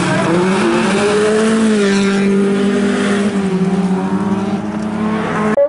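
Bilcross race car engines running hard at high revs as the cars take a bend. The engine pitch rises about a second in and then holds, over a hiss of tyres and gravel. The sound cuts off abruptly just before the end.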